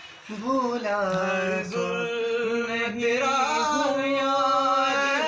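A man singing unaccompanied, holding long, slightly wavering notes; the singing starts a moment in.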